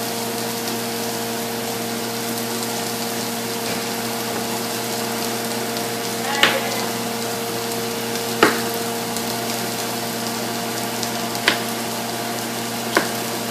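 Pork stir fry sizzling steadily in the pan, with four sharp knocks spread over the second half.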